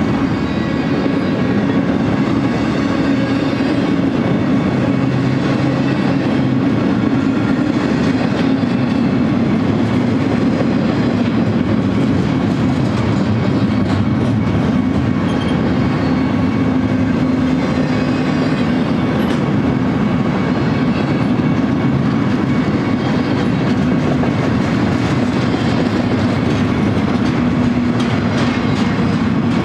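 Double-stack intermodal container cars of a freight train rolling past, with a steady loud rumble and clatter of steel wheels on rail. Faint steady higher tones ride over the rumble.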